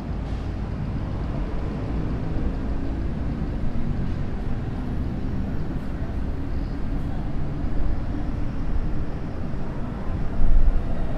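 Street traffic: a steady low rumble of passing car and bus engines, swelling louder briefly near the end.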